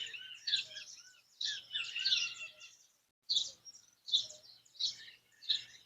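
Songbirds singing and chirping in short, high, quick phrases, some notes gliding in pitch. The phrases come in a repeating pattern about every 0.7 s in the second half, over a faint low hum.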